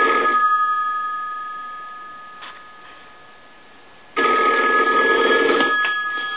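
Single-slot touchtone payphone's bell ringer ringing in the normal on/off cadence, rung as a final test of the repaired phone. A ring burst stops just after the start and the gongs ring down for several seconds, then a second burst of about a second and a half comes about four seconds in.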